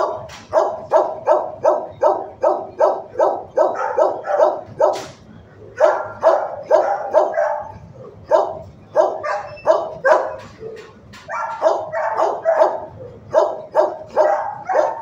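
A shelter dog barking repeatedly in quick runs of about three barks a second, broken by short pauses. It is not the sleeping dog in view.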